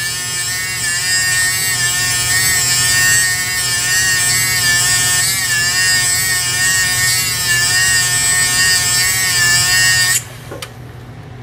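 Small electric motor spinning a diamond wheel, a steady whine that wavers slightly in pitch as the wheel grinds the face of a steel engraving graver, with a high grinding hiss. It cuts off suddenly about ten seconds in.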